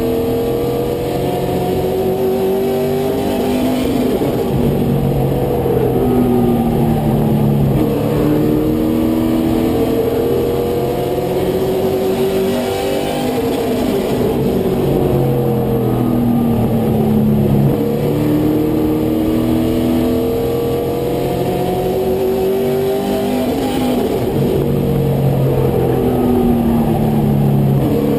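Race truck's engine heard from inside the cab under racing load. It climbs in pitch for several seconds as it accelerates, then drops back, in a cycle about every ten seconds as the truck laps the oval.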